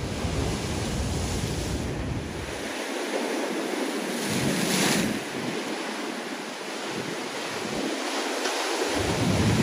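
Ocean swell breaking and washing over a rock ledge, with wind buffeting the microphone in heavy gusts during the first few seconds. A louder wash of surf comes about five seconds in.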